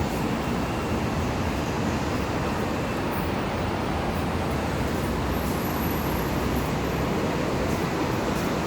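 New York City subway train running, a steady rumble of wheels on the rails.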